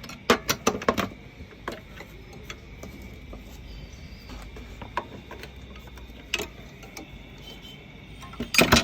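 Sharp metallic clicks and clinks of an Allen key and metal shredder parts being handled during disassembly. A quick cluster comes in the first second, then scattered single clicks, and a louder burst near the end.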